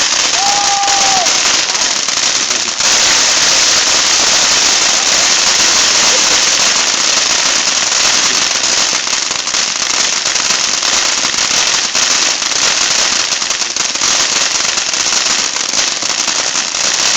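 Fireworks crackling in a loud, dense, continuous rapid crackle that stops suddenly near the end.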